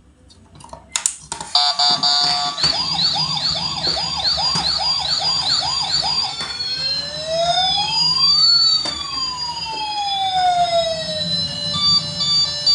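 Toy ambulance's electronic siren. A fast rising-and-falling warble repeats about two or three times a second, then about six seconds in it changes to one slow wail that rises and falls. Steady electronic beeps start near the end.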